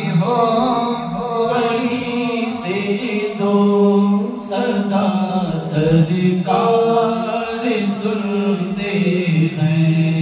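Unaccompanied male chanting of a naat, an Urdu devotional song, sung in long held notes that bend slowly in pitch.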